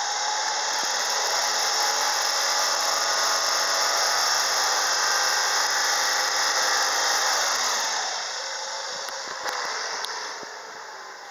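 Chevrolet Aveo's F16D4 1.6-litre 16-valve petrol four-cylinder held at raised revs, steady for about seven seconds, then the revs fall back toward idle.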